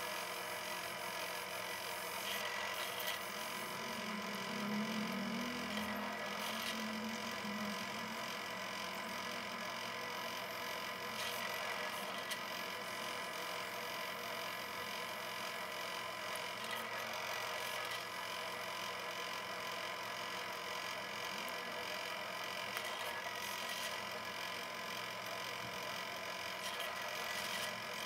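Drill press running with a steady hum as its bit bores a hole through a metal block.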